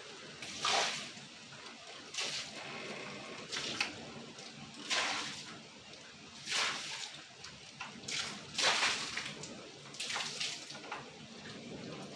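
Water splashing in short irregular bursts, one every second or two, over a steady hiss of heavy rain.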